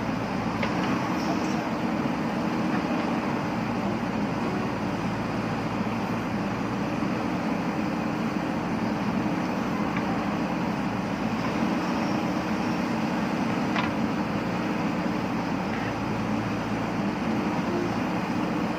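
Diesel engine of a JCB backhoe loader running steadily, its engine note stepping up and down several times as the machine works.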